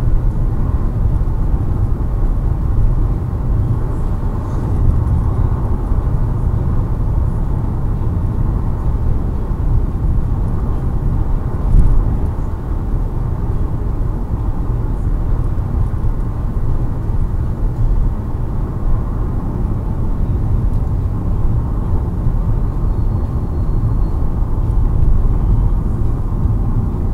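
Car cabin road noise at highway speed, about 120 km/h, picked up by a dashcam: a steady low rumble of tyres and wind. A brief louder bump about twelve seconds in.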